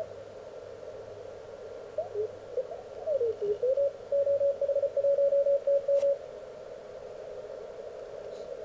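Elecraft K1 transceiver's receiver tuned across the 20-metre CW band: steady hiss through its narrow CW filter, with a whistling tone that slides up and down in pitch as the tuning knob sweeps across a station. The tone settles into Morse code keyed on and off for about two seconds, then drops out to hiss again.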